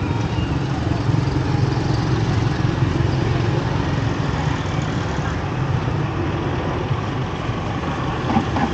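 Steady low mechanical rumble, like an engine running at idle, with faint background voices.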